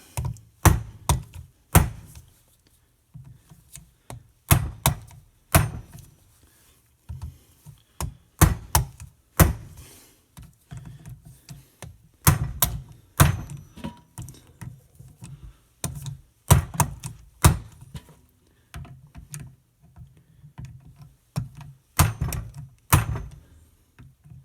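Hammer blows on a hand impact driver, tightening the cam cover screws of a 1939 Harley-Davidson ULH flathead engine. Sharp metallic strikes come singly or in quick pairs, with short pauses between screws.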